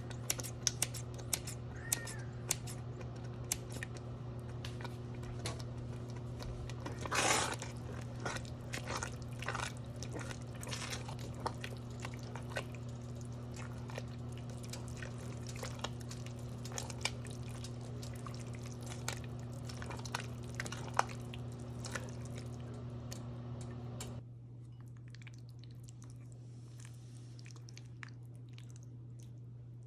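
A spoon clicking and scraping in a pot of thick pasta in tomato sauce as cheese is stirred in, with a louder scrape about seven seconds in. A steady hum runs underneath and cuts off suddenly about 24 seconds in.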